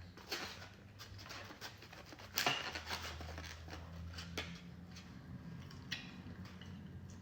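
Knife and fork clicking and scraping as a porterhouse steak is cut and eaten, the sharpest scrape about two and a half seconds in, over a low steady hum.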